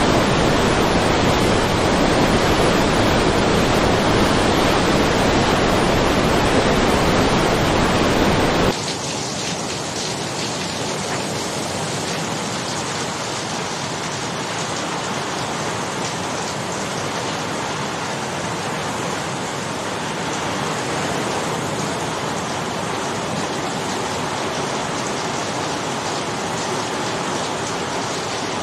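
Floodwater torrent rushing loudly and steadily. About nine seconds in the sound cuts abruptly to a quieter, thinner hiss of rain and flowing floodwater.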